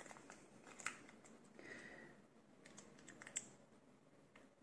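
Near silence with a few faint ticks and light rustles: fingers handling a cotton T-shirt and picking at small leftover pieces of tape.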